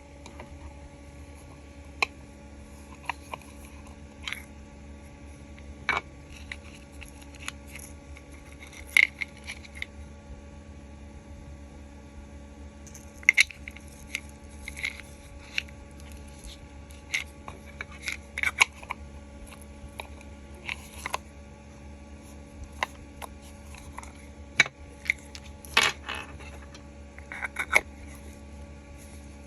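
Hard plastic parts of a 3D-printed steamer and bao model being handled: irregular light clicks, taps and clinks as pieces are set down and fitted together, over a steady low hum.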